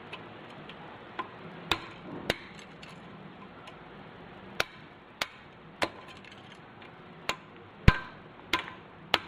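Hammer tapping a punch to drive roll pins out of a Tremec TKO 600 shifter mechanism: about ten sharp metal strikes, irregularly spaced.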